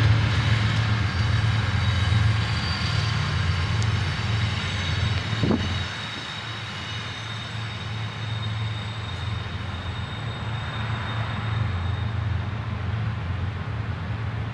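BNSF diesel locomotive on a coal train, its engine giving a deep steady drone that fades as it moves off, dropping away about six seconds in and leaving a quieter low rumble.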